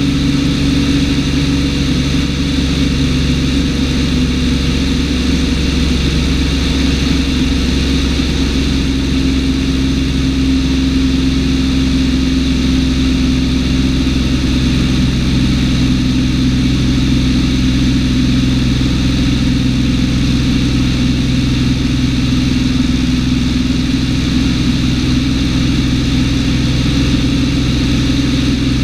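Cessna 210's flat-six piston engine and propeller running at climb power, a steady drone heard from inside the cabin.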